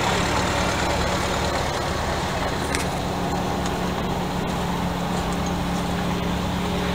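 An engine idling steadily, a low even hum, with a faint tick or two.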